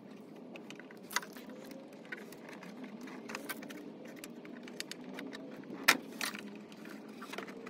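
Plastic push-clips in a wheel-arch liner being worked loose by hand: a few sharp clicks and light rattles, the loudest about six seconds in, over a faint steady hum.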